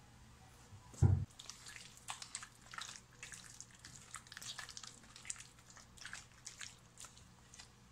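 A single thump about a second in, then irregular wet squelches and slaps as a hand turns raw chicken pieces over in a milky liquid marinade.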